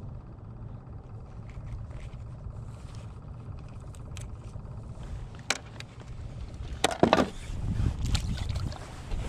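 Plastic Shappell ice-fishing sled sliding over the ice, a steady low scraping rumble, with a few sharp knocks and one louder clatter about seven seconds in.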